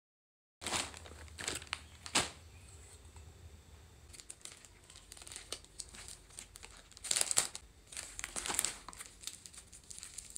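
Crinkling and rustling of something being handled, with a few sharp clicks, in two louder spells: one just after the start and another about seven seconds in.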